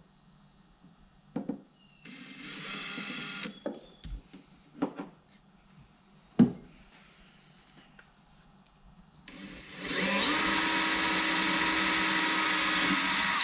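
Cordless drill drilling pilot holes: a short steady run of about a second and a half, a few sharp clicks and knocks, then a longer, louder steady run of about four seconds that stops at the end.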